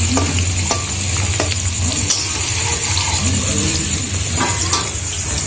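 Potato chunks sizzling in hot oil in a metal kadai, with a spatula scraping and clicking against the pan every second or so as they are stirred.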